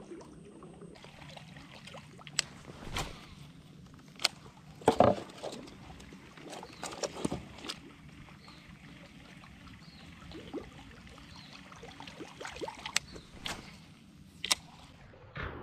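Water lapping quietly around a wooden canoe, with scattered sharp clicks and knocks, the loudest about five seconds in.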